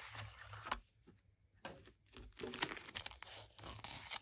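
Clear plastic adhesive gift bag crinkling as it is handled and opened, in two spells: a short rustle at the start, then a longer, louder spell of crinkling from about a second and a half in.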